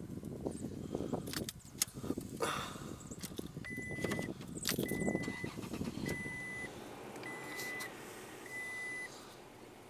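Irregular knocks, clicks and rustling over a low rumble, then five short, even electronic beeps about a second apart, starting about three and a half seconds in.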